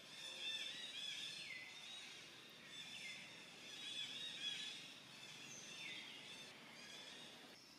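Faint outdoor wildlife chorus: many overlapping high-pitched calls with repeated falling glides, over a low background hiss. The chorus drops away abruptly near the end.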